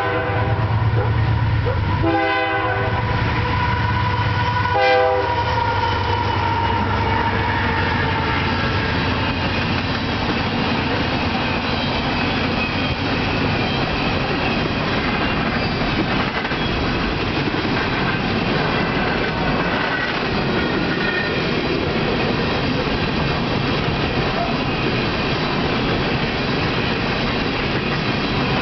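Union Pacific freight train's GE diesel locomotives sounding the horn, warning track maintenance workers: a blast about two seconds in and a short toot about five seconds in. The locomotives' engines pass, and then empty coal gondolas roll by with steady clickety-clack of wheels over rail joints.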